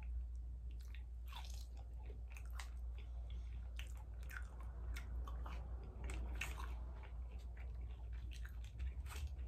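Close-up mouth sounds of a person eating: chewing with irregular wet smacks and occasional crunches. A steady low hum runs underneath.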